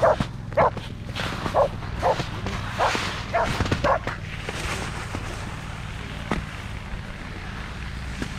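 A long-haired dachshund and another dog barking at each other: about seven short barks in the first four seconds, then the barking stops.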